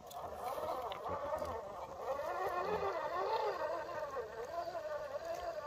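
Electric motor and gearbox of an RC scale rock-crawler truck whining as it crawls over rocks. The pitch keeps rising and falling with the throttle, with a few faint clicks.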